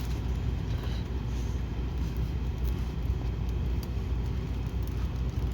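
Steady low mechanical hum, even throughout, with a few faint light clicks over it.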